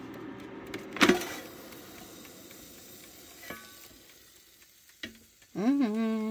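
Small air fryer's fan running with a steady hum, then a loud clunk about a second in as the basket is pulled out, after which the fan noise dies away over a few seconds, leaving faint sizzling from the hot pork chops in the basket. Near the end, a short hummed "mmm" that rises in pitch and then holds.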